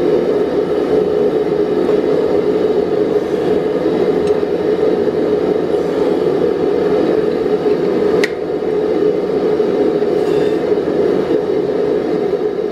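Steady whirring hum of a running motor-driven machine in the workshop, with a single sharp metallic clink about eight seconds in.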